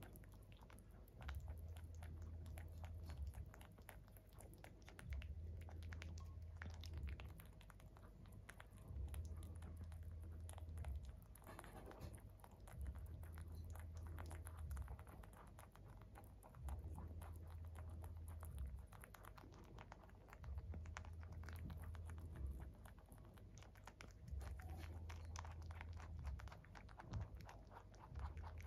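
Pet rabbit crunching pieces of fruit and vegetable, a steady run of quick, soft chewing clicks. Under it, a low hum switches on and off every four seconds or so.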